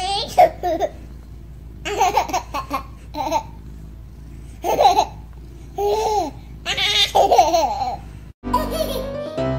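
A baby laughing in several separate bursts of giggles, with short gaps between them. About a second before the end, the laughter stops and piano music comes in.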